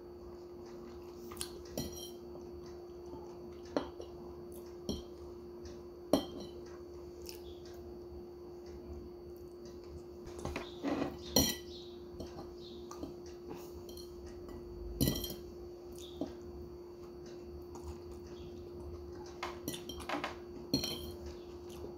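Metal fork clinking and scraping against a bowl while noodles are eaten, in scattered single taps with a busier run about halfway through and again near the end, over a steady hum.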